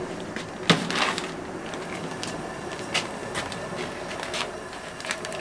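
Crinkling foil hop packets and a plastic tub being handled, with scattered sharp clicks, the sharpest about a second in. Beneath it, the steady rush of a gas burner under a kettle of wort at a rolling boil.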